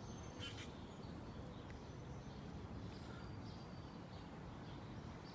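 Faint steady background noise with a few short, high bird chirps, one about half a second in and fainter ones around three seconds.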